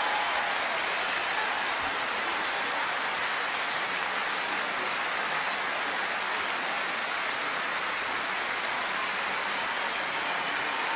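A steady, even hiss like heavy rain, with no pitch or rhythm.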